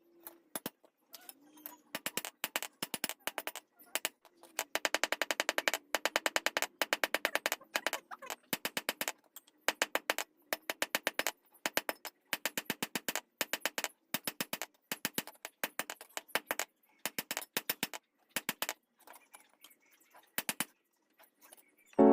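Blacksmith's hammer striking steel on an anvil in quick runs of blows, several a second, each blow ringing briefly; the strikes thin out near the end.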